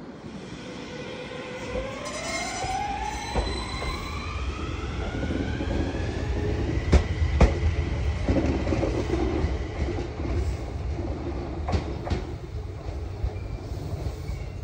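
Enshu Railway electric train accelerating: a motor whine rising steadily in pitch over the first few seconds and then holding, over a steady running rumble. The wheels clack over rail joints twice about halfway through and once more near the end.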